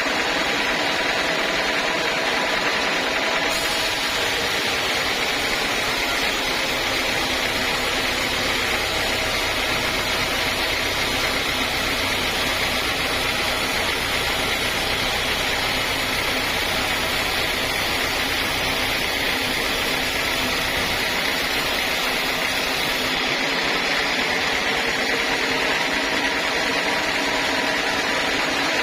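Sawmill saw running steadily, with its motor's hum. From about three seconds in until about 23 seconds the sound gets fuller and brighter, a steady cutting sound as the blade works through the log.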